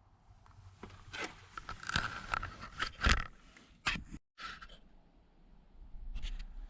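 Irregular scraping and clicking of a hand tool working Torx bolts out of plastic interior trim, with a few sharper knocks about three and four seconds in.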